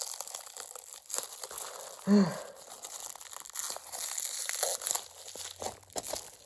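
Plastic stretch wrap crinkling and tearing as it is pulled off by hand in a run of small crackles, with a short grunt about two seconds in.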